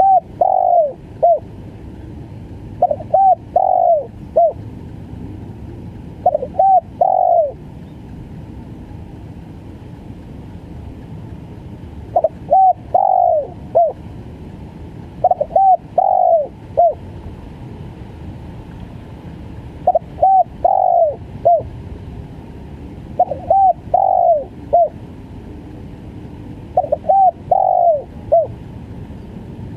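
Spotted dove (tekukur) cooing in its stuttering 'gagap' song: short phrases of three or four quick coos, repeated about eight times a few seconds apart, over a steady low hiss.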